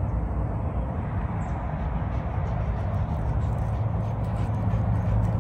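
Footsteps crunching on a gravel path over a steady low rumble. The crunching grows clearer in the second half.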